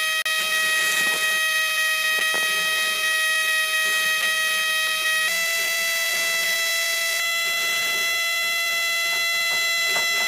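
Small electric motor of a homemade mini rice mill running with a steady high-pitched whine. Its pitch steps up slightly about halfway through.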